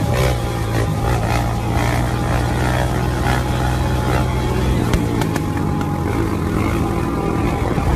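Sport quad (ATV) engine running hard as it is ridden on its rear wheels in a wheelie, heard over wind and road noise. The engine note holds steady, then shifts about five seconds in.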